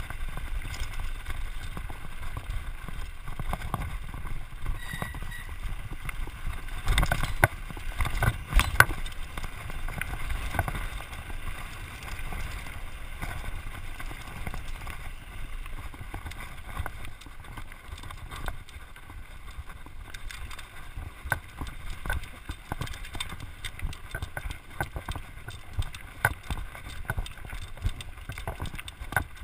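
Mountain bike riding down forest singletrack, heard from a handlebar-mounted camera: a steady low wind rumble on the microphone with constant rattling and knocking from the bike over the trail's bumps. There is a cluster of harder jolts about seven to nine seconds in.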